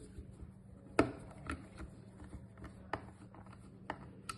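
Coffee machine brew group parts clicking and knocking as they are handled and fitted back together by hand: about half a dozen separate clicks, the loudest about a second in.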